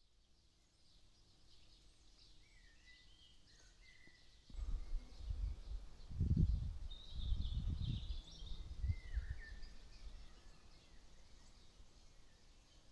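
Small songbirds chirping faintly. From about four and a half seconds in, a louder low rumbling swells and fades several times, loudest in the middle.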